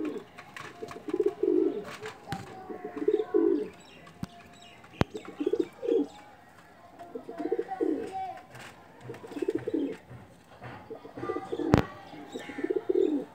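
Pigeon cooing: a run of low, pulsing coos repeating every second or two. A sharp click comes in the middle and a louder one near the end.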